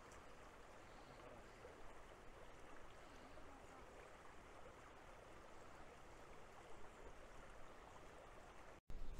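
Faint, steady rushing of a small hill stream. It cuts off abruptly near the end.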